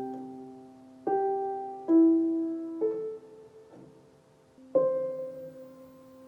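Slow solo piano music: soft chords struck about once a second, each left to ring and fade, the last one held longer.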